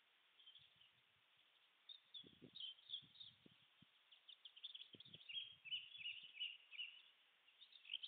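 Small songbirds chirping and twittering faintly, the calls thickest in the middle, with a few soft low thumps.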